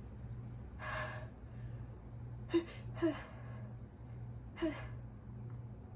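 A woman's gasping pre-sneeze inhalations as an allergy sneeze builds: one longer breathy gasp about a second in, then three short sharp catching gasps with a brief voiced edge.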